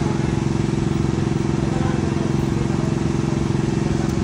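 A motor or engine running steadily with a constant low hum and a fast rumbling flutter.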